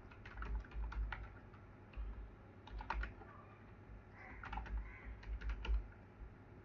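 Computer keyboard typing: three short bursts of keystrokes with pauses between them.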